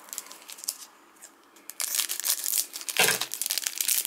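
Plastic wrapper of a retail trading-card pack crinkling and tearing as it is opened by hand. Faint at first, it turns into a dense, busy crinkle from about two seconds in.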